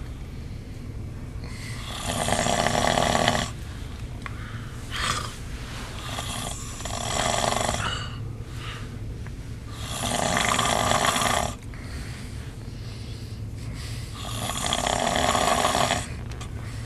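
A man snoring heavily in his sleep, with a loud snore every four or five seconds, four big ones and a smaller one between, over a steady low hum.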